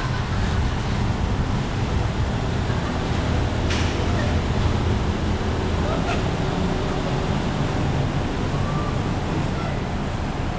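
Steady low rumble and hiss of a vehicle inspection bay: a minibus engine running on the headlight test stand, mixed with the wind of a large floor fan. A brief sharp sound about four seconds in.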